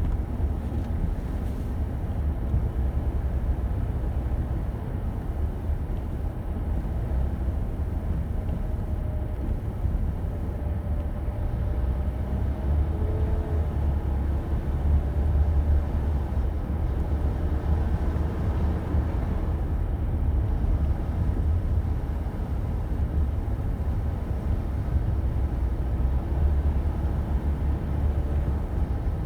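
A car driving slowly along a rough forest road: a steady low rumble of engine and tyres, with a faint wavering engine drone above it.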